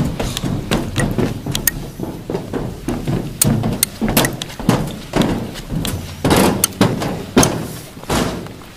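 Footsteps and handheld-camera handling noise while walking: irregular thuds and knocks, with clothing rubbing against the microphone.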